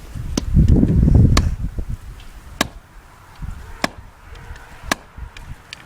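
Baseball bat striking a tree trunk: six sharp knocks roughly a second apart. A loud low rumble runs through about the first second and a half.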